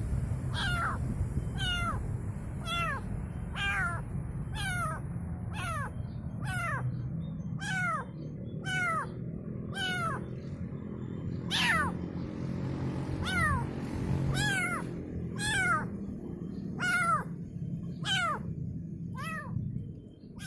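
A kitten mewing over and over to call its mother: short, high meows about once a second, each falling in pitch, over a steady low rumble.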